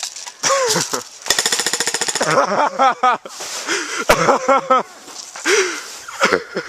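An airsoft gun firing a rapid full-auto burst lasting about a second. It is followed by several short, loud cries from a player who is being hit.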